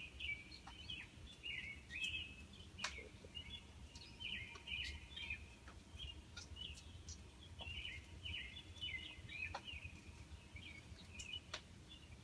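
Small birds chirping over and over, with a few sharp clicks, above a low, steady rumble of distant background noise.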